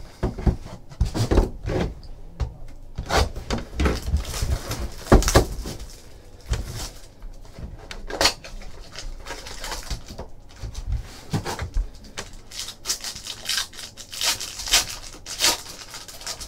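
Hands handling and opening a sealed trading-card hobby box: crinkling of the torn-off plastic shrink wrap, knocks of the cardboard box, and a foil pack being torn open near the end. All of it comes as a run of irregular rustles and crackles.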